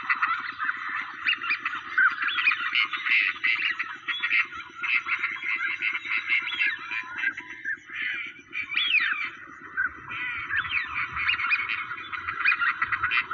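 A dense, continuous chorus of waterfowl calls: duck quacks and goose-like honks overlapping, many with rising and falling pitches, over a fast low buzz.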